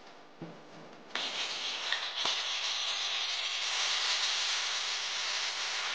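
Chopped shallots and garlic sizzling in hot oil in a wok, a steady hiss that starts suddenly about a second in. A single sharp knock, like the spatula against the pan, comes soon after the sizzling starts.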